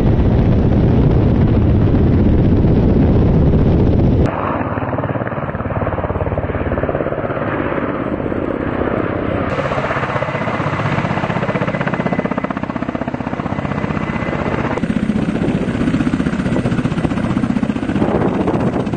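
Kamov Ka-52 attack helicopter's coaxial rotors and turbine engines running, a dense steady thrum of rapid blade beats. For the first four seconds it is a heavier, deeper rumble heard in flight. It then changes abruptly to a brighter rotor and engine noise heard from the ground.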